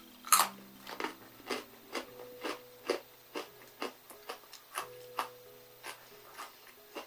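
Close-up crunching of a crisp baked savoury cracker (Arnott's Pizza Shapes) being bitten and chewed. There is a sharp bite about a third of a second in, then a run of crunches about two a second.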